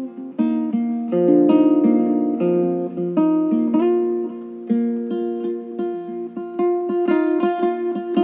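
Background music: plucked-string instrumental with a run of picked notes, growing busier and more strummed near the end.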